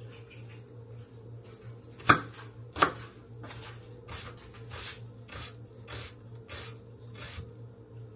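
Kitchen food preparation with utensils: two sharp knocks a little under a second apart, then a run of regular short scraping strokes about one every half second, over a steady low hum.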